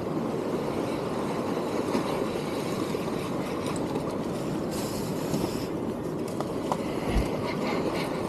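Steady rumble of wind and sea washing against the rocks of a stone jetty.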